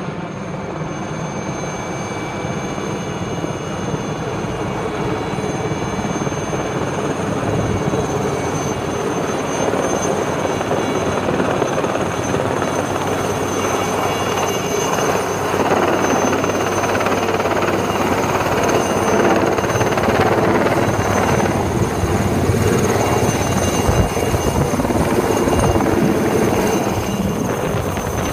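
Aérospatiale Lama helicopter flying overhead, its rotor noise carrying a steady high turbine whine and growing steadily louder as it comes closer.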